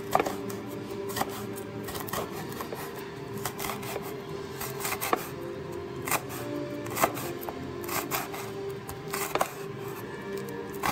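Cleaver chopping red chilies on a wooden cutting board: sharp knocks of the blade hitting the board, irregularly spaced at roughly one or two a second, over soft background music.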